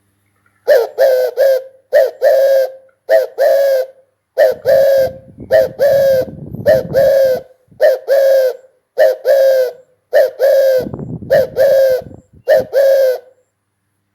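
Spotted dove cooing: a long run of short, evenly repeated low coos, starting just under a second in and stopping shortly before the end.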